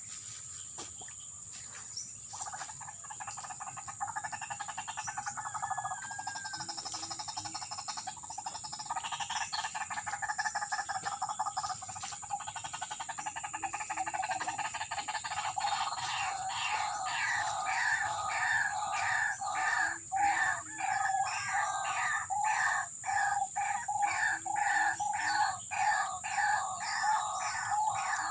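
White-breasted waterhen (ruak-ruak) calls played from a portable speaker as a lure. A continuous rapid chattering call starts about two seconds in and turns into a steady run of separate repeated calls, about two a second, in the second half.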